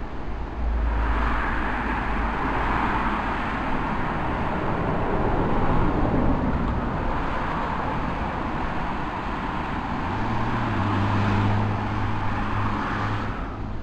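Cars passing on a road: steady tyre noise that swells and fades a few times, with a low engine hum joining about ten seconds in as a car comes closer.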